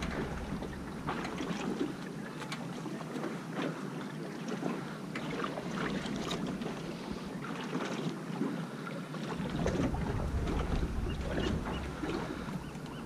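Choppy ocean water slapping and splashing against the side of a small drifting fishing boat, with gusty wind rumbling on the microphone. Near the end comes a run of short high chirps, about three a second.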